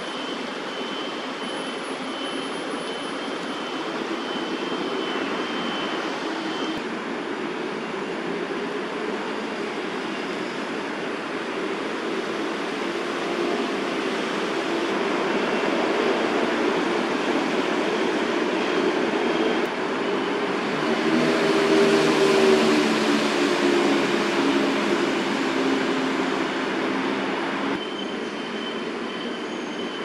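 Steady city traffic noise with a low hum, swelling over about ten seconds to a peak about two-thirds through as a loud vehicle passes, then easing off. A thin, high, steady tone sits over it at the start and near the end.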